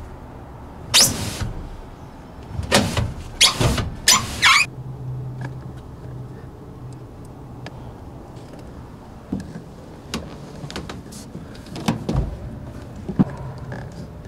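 Large wooden subwoofer enclosure being slid and shoved across a pickup truck bed: several loud scrapes in the first five seconds, then scattered knocks and bumps over a low steady hum.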